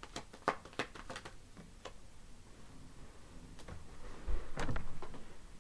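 Tarot cards being handled on a table: a run of light, sharp clicks over the first two seconds, then a soft thump and rustle about four and a half seconds in.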